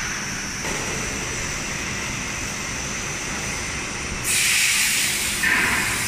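HDPE blown film machine running: steady machine noise with a thin high whine. About four seconds in a louder hiss of air comes in for about a second, followed by a second, shorter hiss near the end.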